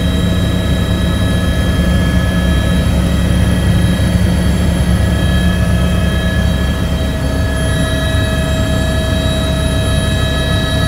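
Helicopter in flight heard from inside the cabin: a steady, loud drone of rotor and turbine engine, a deep rumble with several steady whining tones above it.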